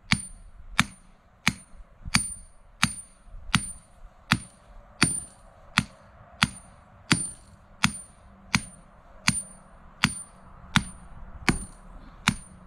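Claw hammer striking the top of a metal electric-fence ground rod, driving it into the ground. The strikes come steadily, about one every 0.7 seconds, each a sharp metallic clank with a short high ring.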